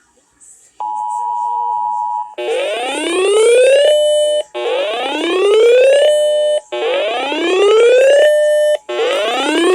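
Emergency alert tone: a short steady beep, then a whooping alarm that rises in pitch and holds at the top about every two seconds. It sounds three times and starts a fourth near the end.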